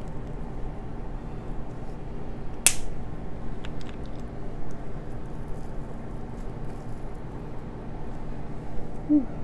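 Cooked crab shell being broken apart by hand to get at the meat: one sharp crack about three seconds in, then a few faint clicks. A steady low hum runs underneath, and a brief low tone comes near the end.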